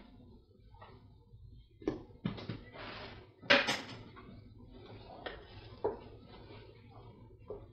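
Clatter of kitchen utensils and cookware, a run of sharp knocks with the loudest about three and a half seconds in. In the second half, a wooden spoon knocks lightly against a stainless steel stock pot as a chunky vegetable stew is stirred.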